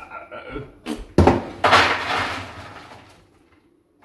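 Frozen oven fries poured from a plastic bag onto a metal baking tray: a couple of sharp knocks, then a clattering rattle that fades out over about a second and a half.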